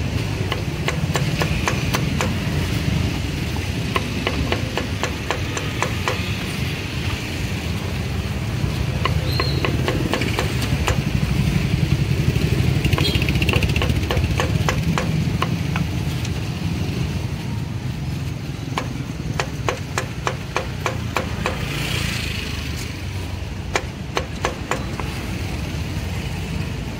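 Cleaver chopping roasted pork ribs on a thick wooden chopping block: sharp knocks in quick runs, densest about two-thirds of the way through. A steady low rumble of engines and traffic sits under the chopping.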